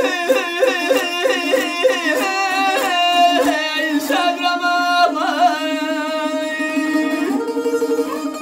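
Azerbaijani saz playing an instrumental passage near the end of a traditional ashiq tune: quick plucked, ornamented notes over a steady drone, settling into long held notes about five seconds in.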